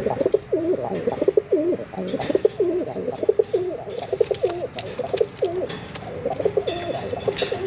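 Several domestic pigeons cooing at once, their calls overlapping continuously, with scattered short clicks among them.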